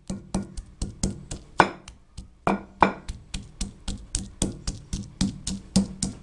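Wooden pestle pounding garlic cloves in a stone mortar: a steady run of knocks, about three to four a second, some strokes much louder than others.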